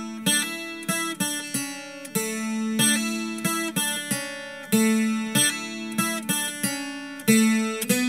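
Viola caipira, the Brazilian ten-string guitar with steel strings in paired courses, played as an instrumental: a quick run of plucked notes and strums that ring out and overlap.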